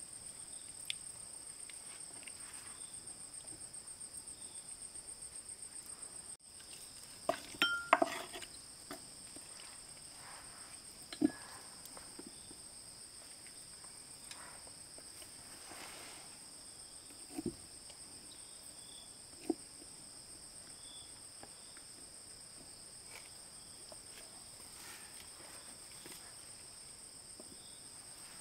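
Insects chirring steadily in two high-pitched bands, pulsing rapidly at first, with a few scattered knocks and clinks of handled objects, the loudest cluster about eight seconds in.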